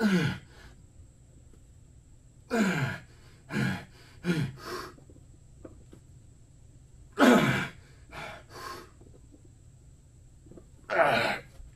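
A weightlifter's strained grunts and forceful breaths while pressing a heavy barbell, about nine in all, each falling in pitch, coming in clusters with pauses of a second or more between them. This is the hard breathing of the last reps of a long bench press set, close to failure.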